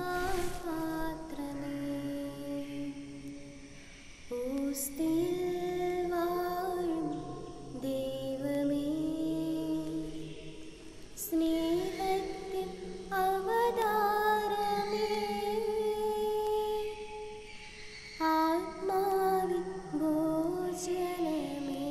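Slow hymn singing: long held notes that glide gently in pitch, sung in phrases of several seconds with short breaks, a lower line sounding beneath the melody.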